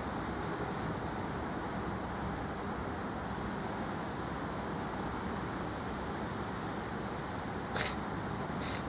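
A cat with a cold sneezing twice near the end, two short sharp hissy bursts under a second apart, over steady street traffic noise.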